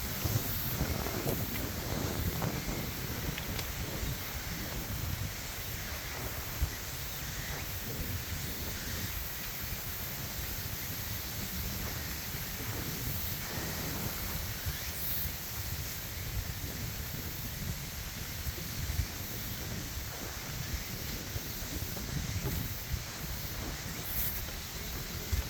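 Wind buffeting the microphone with steady rustling, and a few light knocks.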